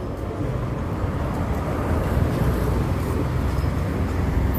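Steady city street traffic noise: a continuous wash of passing vehicles with a low rumble.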